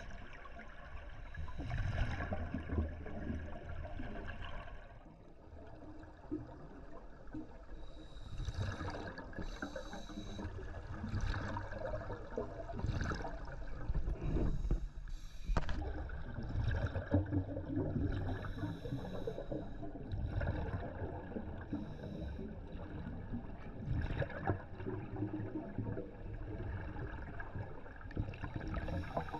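Scuba diver breathing through a regulator underwater, heard through a camera housing: a hissing inhalation alternating with a longer low bubbling, gurgling exhalation, breath after breath every few seconds.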